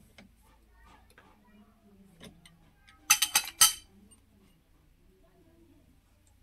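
Metal tools and parts clinking during work on a tractor's front wheel bearing: a few faint taps, then a quick run of about four sharp metallic clinks a little over three seconds in.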